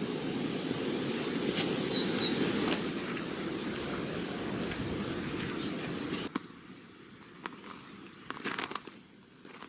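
Footsteps crunching on a gravel path. About six seconds in the sound drops away to a quieter outdoor hush with a few scattered clicks.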